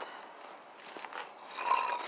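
A short scraping rustle near the end, with a few faint clicks before it.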